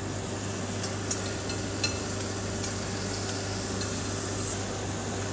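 Oil-marinated chicken breast sizzling on the hot grates of a char grill, with a steady hiss and a few scattered pops and crackles. A steady low hum runs underneath.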